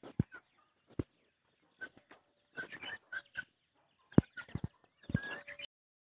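A flock of free-range chickens clucking in short, scattered calls while feeding, with several sharp low knocks in between, the loudest about four seconds in.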